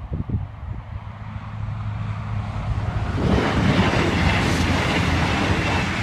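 A train passing at speed over a level crossing: a rushing noise builds as it approaches, is loudest from about three seconds in, and begins to fade near the end.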